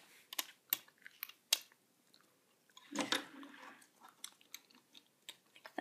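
Faint scattered clicks and snaps of small rubber loom bands being taken off the pegs of a bracelet loom, with a brief rustle about three seconds in.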